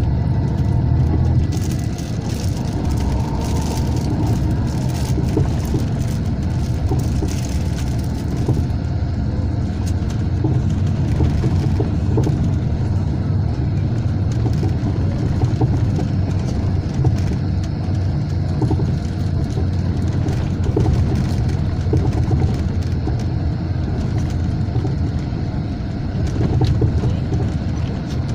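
Steady low rumble of a Mercedes-Benz O500 RSD coach under way, heard from inside the passenger cabin: diesel engine and road noise mixed. A fainter hiss above the rumble lessens about eight seconds in.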